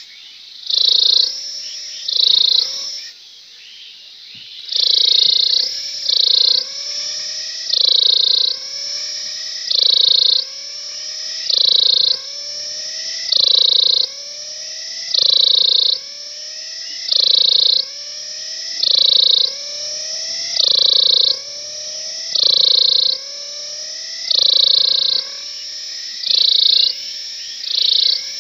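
Cicada singing: a loud pulse roughly every two seconds over a steady, quieter buzz, with a short lull about three seconds in.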